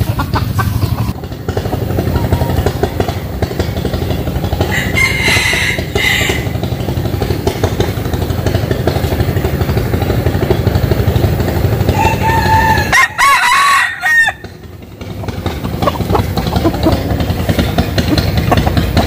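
Roosters crowing twice: a short crow about five seconds in and a longer one near the two-thirds mark, over a steady low rumble.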